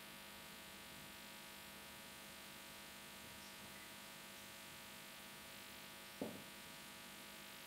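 Near silence: a steady electrical hum from the recording, with one short soft thump about six seconds in.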